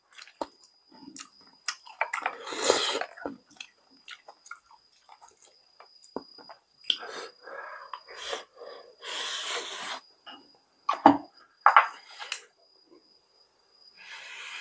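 A person chewing food, with hissing breaths drawn in and blown out through the mouth against the burn of Cheongyang chili peppers, and a few sharp mouth clicks near the end.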